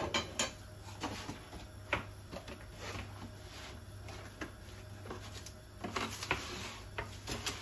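Scattered light clicks and knocks of kitchen utensils and dishes being handled on a countertop, the sharpest right at the start, over a faint steady low hum.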